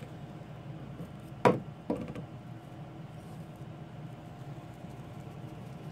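Two knocks of hard plastic on a plywood workbench about a second and a half in, as the 3D-printed PLA cyclone separator and its plastic soda bottle are handled and set down. After that, faint light pattering of sawdust being tipped out of the bottle.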